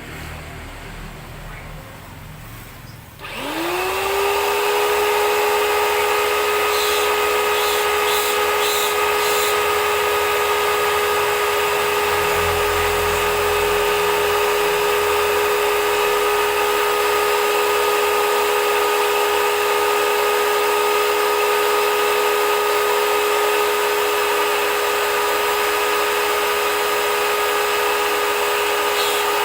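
Brushed motor of an H&L ABW VGS 70 high-pressure washer switched on about three seconds in. It spins up with a quickly rising whine, then runs at a steady high pitch.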